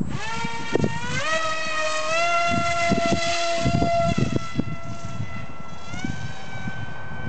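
Dynam Hawksky RC glider's electric motor and propeller whining on a four-cell battery. It cuts in suddenly, rises in pitch as the throttle opens, holds, then climbs again near the end. Wind gusts buffet the microphone throughout.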